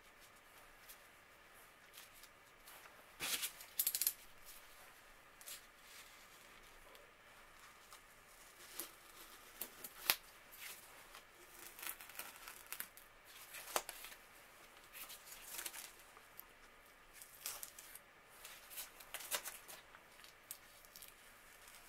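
Masking tape being peeled off the body of an old clothes iron: a series of short, faint tearing and crinkling sounds, the loudest about three to four seconds in, with light clicks of handling.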